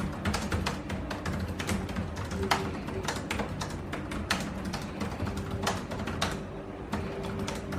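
Fast typing on a laptop keyboard: a quick, irregular run of key clicks, over background music.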